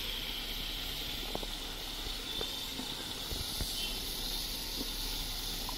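Duck curry sizzling and steaming in an iron karahi over a wood fire: a steady hiss with a few faint clicks.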